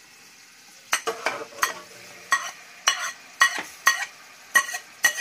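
A steel ladle repeatedly knocking and scraping against a plate and an aluminium pan as a wet onion-tomato paste is scooped into hot oil, with a faint sizzle underneath. The ringing metal knocks begin about a second in and come roughly twice a second.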